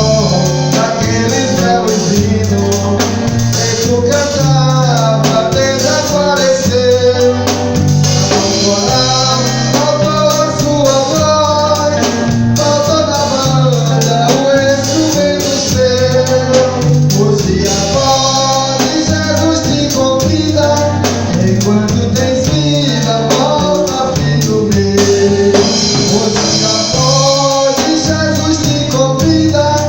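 Portuguese-language gospel praise song: a church vocal group singing over a band accompaniment with a steady, stepping bass line.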